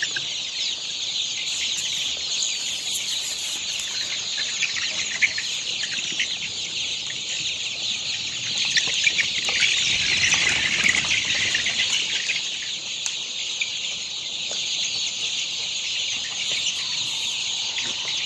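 A large flock of chickens calling all at once: a dense, continuous chatter of overlapping cheeps and clucks, growing a little louder about halfway through.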